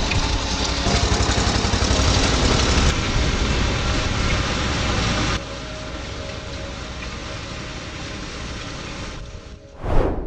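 Engine of concrete-work machinery running steadily with a low rumble, in two cuts: louder for the first five seconds, then quieter. A brief whoosh comes near the end.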